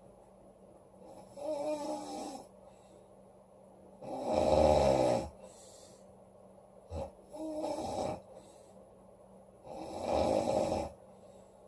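A woman snoring loudly: four snores about three seconds apart, the loudest about four seconds in.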